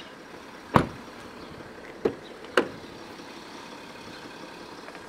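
Three sharp knocks. The first, about a second in, is the loudest and deepest. The other two come close together about two seconds in. A faint steady background hiss runs under them.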